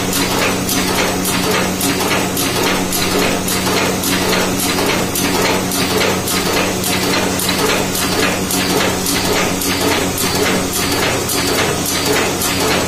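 Automatic agarbatti (incense stick) making machine running, clacking steadily about three times a second over a constant motor hum as it extrudes paste onto bamboo sticks.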